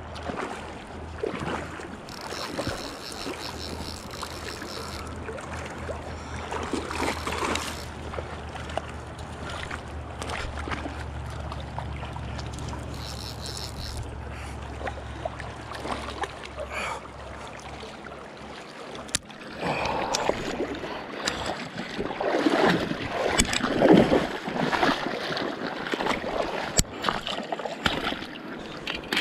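Shallow river water running and splashing over rocks close to the microphone. From about two-thirds of the way through come louder, irregular splashes as a brown trout is brought to the landing net.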